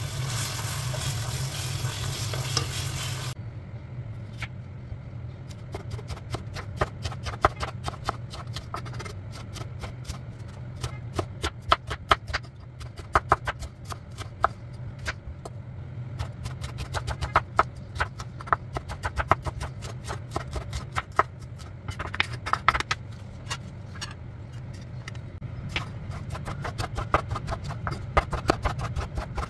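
A spoon stirring a thick mutton and fenugreek curry in a pot for the first few seconds. Then a chef's knife slices red onion and then tomatoes on a wooden cutting board, each cut a sharp click against the board, coming in quick runs. A low steady hum sounds throughout.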